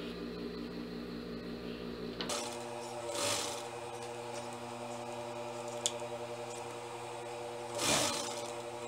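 Jontex industrial sewing machine humming steadily while switched on, its tone changing about two seconds in. Cloth rustles twice as the fabric is shifted at the presser foot, and there is a single sharp click near the middle.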